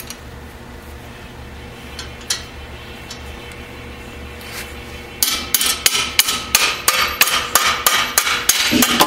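Hammer striking metal clamped on a workbench: a quick, even run of blows, about four a second, starting about five seconds in. Before that there is only a low steady hum and a couple of light clicks.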